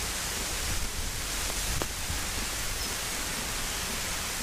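Steady hiss with a low rumble underneath: wind and rain noise on the microphone in wet, misty weather.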